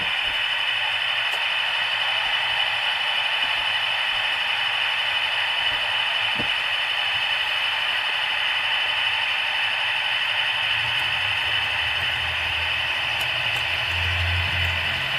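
Model Class 60 diesel locomotive's DCC sound decoder (Howes sound file) playing a steady diesel engine idle through its small speaker. From about eleven seconds in, a low hum and rattle join as a model multiple unit runs past close by.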